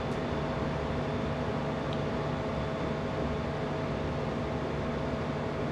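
Steady running noise inside a diesel passenger train carriage as the train pulls out of a station, with a low, even engine hum. A faint click about two seconds in.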